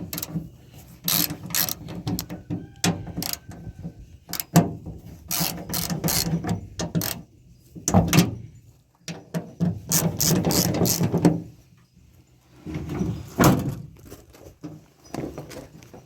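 Hand ratchet with a 1/2-inch socket clicking in repeated bursts as it loosens and backs out the tailgate handle bolts, with short pauses between strokes.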